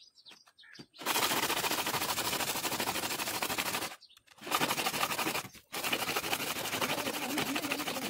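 A brass combination-padlock part rubbed fast back and forth on coarse sandpaper, a loud rasping scrape as rust and grime are sanded off. It comes in three spells: from about a second in, again after a short break near the middle, and once more from about two-thirds through.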